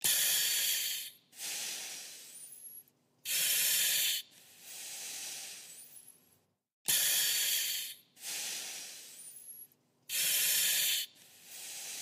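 Breathing through a firefighter's oxygen mask, in a slow, regular rhythm of about one breath cycle every three seconds. Each cycle is a short, loud valve hiss lasting about a second, followed by a quieter, longer breath that fades away.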